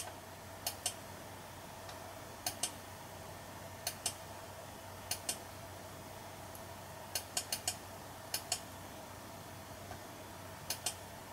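Computer mouse clicks, each a quick double tick of press and release, spaced a second or two apart with a faster run of clicks a little past the middle. A faint steady electrical hum underneath.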